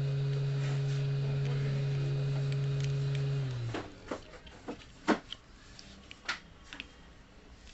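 A steady low electrical hum with a few overtones stops suddenly about three and a half seconds in. It is followed by a handful of sharp clicks and taps.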